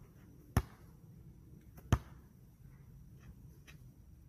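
A basketball bouncing twice on an asphalt court, a little over a second apart: dribbles before a free throw.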